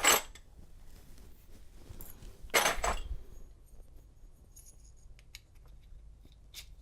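Small metal clinks and rattles of lock pins and springs coming out of a disassembled Schlage padlock cylinder. There is a sharp clink at the start, a louder cluster of clinks about two and a half seconds in, then a few faint ticks.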